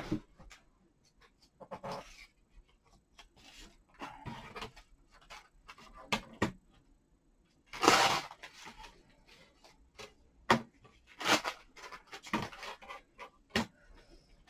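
Paper handling on a craft table: tissue paper and card cutouts rustling and shuffling, with light taps and slides of a plastic ruler on a cutting mat. It comes in scattered short bursts, the loudest about eight seconds in.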